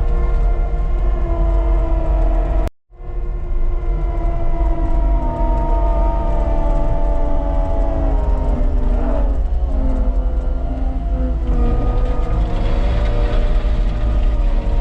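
Cat skid loader's diesel engine running hard with a hydraulic whine that shifts in pitch as the machine works, breaking off briefly about three seconds in.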